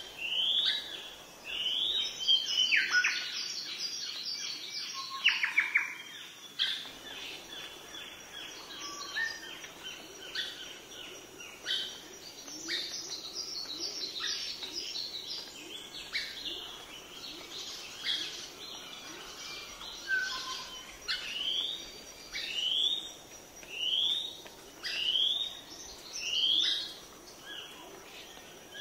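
Several birds calling and singing: one repeats a short, rising, high chirp about every second and a half, while others add rapid high trills and twittering.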